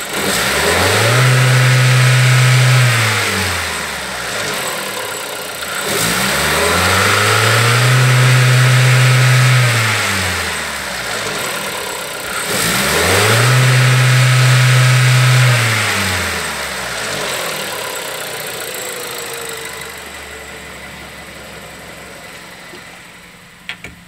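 Volkswagen 1.2 TSI (CJZA) turbocharged four-cylinder petrol engine free-revving with no load: revved up three times, each held high for about three seconds before dropping back, then settling toward idle.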